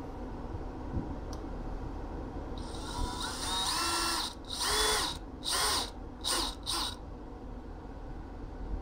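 Cordless drill working at a van's plastic dashboard: one run of nearly two seconds, its whine climbing in pitch as the motor speeds up, then four short trigger bursts.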